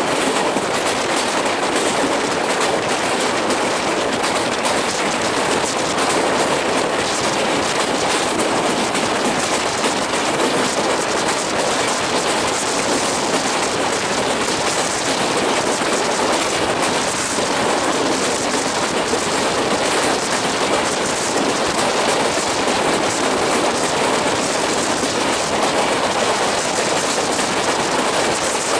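Wheels of a moving passenger train running on the rails, heard on board: a steady rushing noise with faint rapid clatter and no change in pace.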